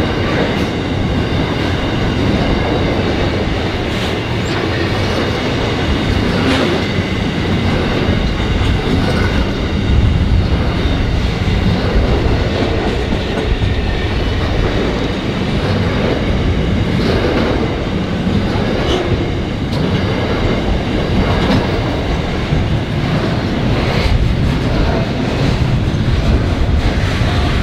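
Container freight train wagons rolling past close by. The wheels make a steady rumble, with clacks at uneven intervals of one to three seconds and a faint steady high ringing from the wheels on the rails.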